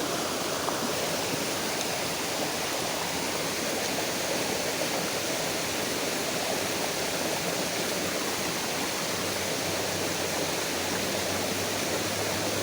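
Shallow stream water running steadily, an even rushing sound.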